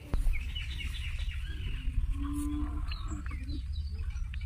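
Small birds chirping over a steady low rumble of wind on the microphone, with one short, steady low note a little after two seconds in.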